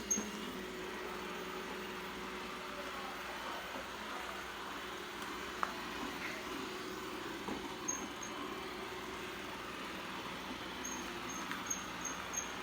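Eufy RoboVac 11 robot vacuum running with a steady motor hum while it moves, giving off short high-pitched squeaks: a brief pair about two-thirds in, then a quick run of them, about three a second, near the end.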